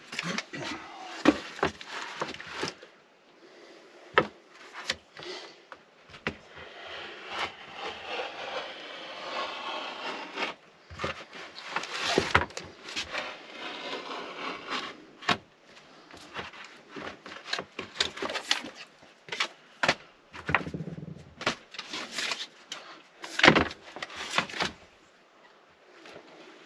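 Hand work on a van's sliding-door panel: irregular knocks and taps, with stretches of crinkling rustle from sound-deadening sheets being handled and fitted. One sharp knock near the end is the loudest.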